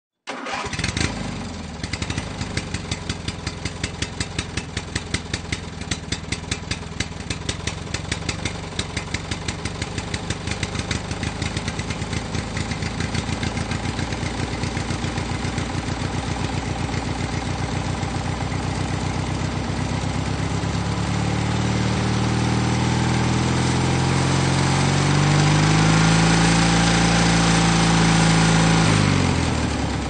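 Two-stroke engine running with a regular popping beat at low revs, then revved up from about two-thirds of the way through. Its pitch climbs and wavers while held high, then drops away near the end.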